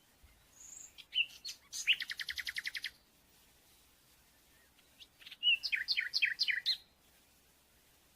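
A songbird singing two phrases. The first ends in a fast, even trill. The second, a few seconds later, is a quick run of down-slurred notes.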